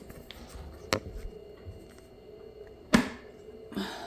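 Handling noises from a shipping box being opened: a sharp knock about a second in, a louder one about three seconds in, and a softer one near the end, with faint rustling between.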